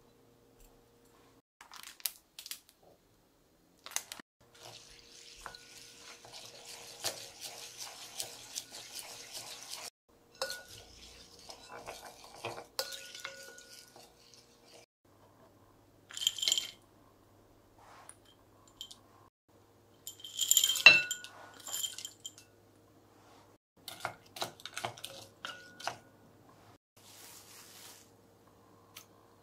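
Wet rice being stirred and scraped with a spoon and spatula in a rice cooker's nonstick inner pot, with water poured in for several seconds. A few ringing metallic clinks come about two-thirds of the way through, the loudest of the sounds.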